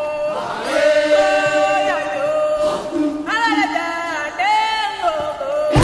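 Music of voices chanting in long held notes, several at once, sliding between pitches.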